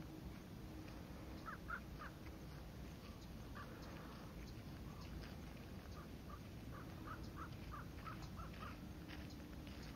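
A crow cawing faintly: three short caws about one and a half seconds in, one near four seconds, then a quick run of about eight caws before the end, over a steady low rumble.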